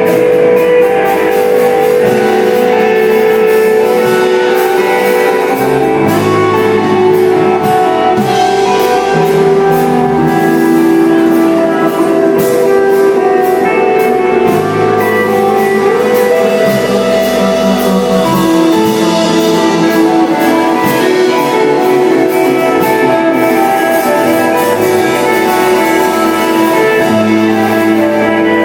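A live instrumental desert rock band playing: electric guitar holding long notes over two bass guitars and drums, with the bass line changing note every couple of seconds and cymbals ringing throughout.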